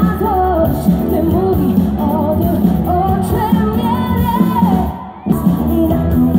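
Live pop band playing through a concert PA, with a female lead vocal. The music cuts out for a moment about five seconds in, then comes straight back.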